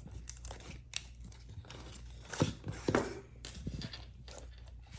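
Toy packaging being torn open and crinkled by hand: irregular crackles, rips and rustles, a little louder around the middle.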